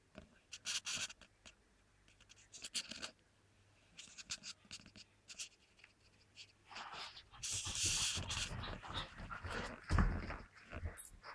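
A puppy running and playing: scattered short scuffling noises, a denser stretch of scuffling about seven to nine seconds in, and a single thump about ten seconds in.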